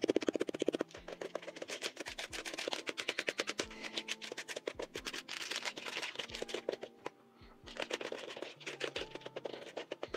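Spatula beating cookie dough in a plastic mixing bowl: quick knocks and scrapes against the bowl's side, fastest in the first second, with a short lull about seven seconds in. The spatula is smacking apart lumps of brown sugar in the butter, sugar and egg mixture.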